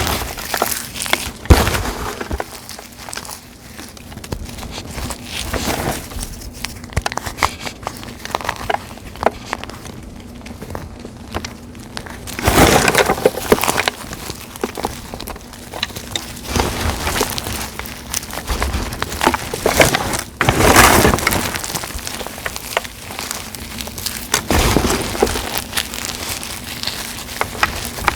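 Blocks of dried gym chalk set with glitter paste, dried leaves and flowers being crushed and crumbled, with repeated cracks and crunches; the longest, loudest crunching comes about twelve seconds in and again about twenty seconds in.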